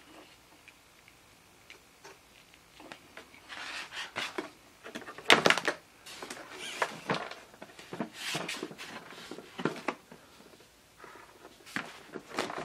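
Handling noise: irregular bursts of clatter and rustling with sharp clicks, as hands move the model airplane wing, its wiring and the camera. The loudest clatter comes a little past five seconds in.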